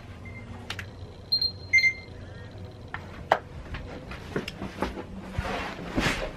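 Electronic beeping: a faint short beep near the start, then a few brighter, higher beeps about a second and a half in, after which the beeping stops. Clicks and rustling of handling follow through the rest.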